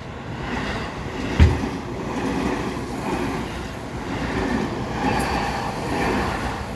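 Seibu Ikebukuro Line train passing over a level crossing: a steady rumble of wheels on rail that builds up early and holds, with one sharp thump about a second and a half in.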